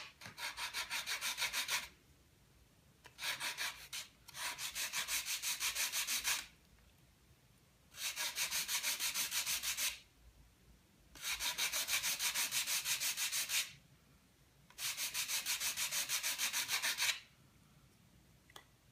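Sandpaper rubbed quickly back and forth over the balsa ribs of a model glider wing, in six spells of short rapid strokes, about seven a second, with brief pauses between. This is light spot-sanding of the rib tops, with tape laid over them as a stop so the sanding does not break through.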